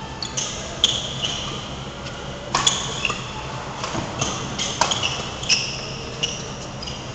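Badminton rackets striking a shuttlecock in a fast doubles rally: a string of sharp pings and clicks, several coming in quick succession, each with a short high ring.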